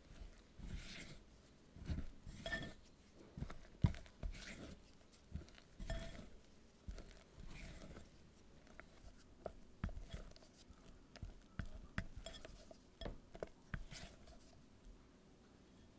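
Silicone spatula folding flour into a thick tart batter in a glass bowl: irregular soft scrapes and wet squelches, with light clicks of the spatula against the glass.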